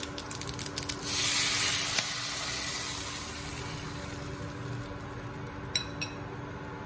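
Mustard seeds and spices crackling in hot oil in a steel pan. About a second in, buttermilk and gram-flour batter is poured onto the hot tempering and a loud sizzling hiss bursts up, then slowly dies down. Two light clinks follow near the end.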